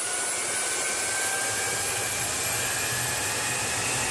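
Small gas turbine (jet-type) engine running, a high whine climbing slowly and steadily in pitch over a constant rush of air.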